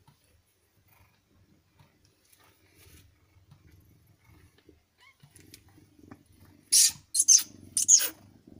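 Mother cat purring softly while giving birth to her kittens. Three loud, brief scuffing noises come close together near the end.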